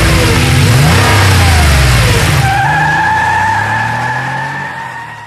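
Car engine revving, its pitch sweeping up and down. From about two and a half seconds in comes a high, steady tyre squeal, and the sound fades out near the end.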